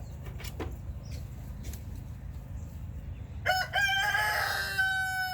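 Rooster crowing once, about three and a half seconds in: a loud, drawn-out call in a few segments, the last one held.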